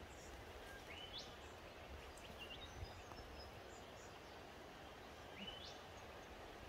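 Quiet bush ambience, close to silence, with two faint whistled calls that sweep up and level off, about a second in and again near five and a half seconds, plus a few tiny distant chirps.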